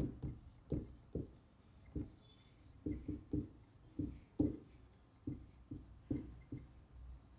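Marker pen writing on a whiteboard: a quiet, irregular string of short strokes and taps, one for each letter as a word is written.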